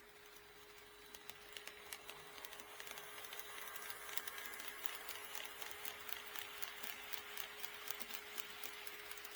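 HO scale model train running along the track, drawing closer: a running hiss from the motor and wheels with rapid clicking from the wheels over rail joints, growing louder over the first few seconds, then steady. A faint steady hum lies underneath.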